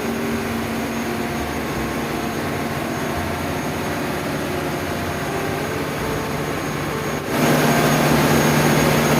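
Ship's emergency diesel generator running steadily under load, a steady hum, getting abruptly louder about seven seconds in.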